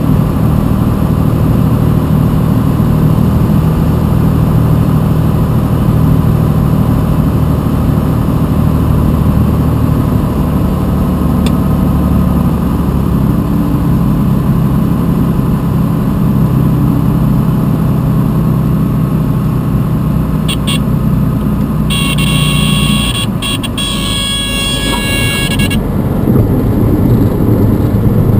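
Single-engine propeller airplane's piston engine and propeller running steadily on final approach, with rushing air. About 22 seconds in, a high-pitched warning horn sounds for about four seconds, typical of the stall warning horn in the flare. The engine note then drops and a low rumble builds as the wheels roll on the runway.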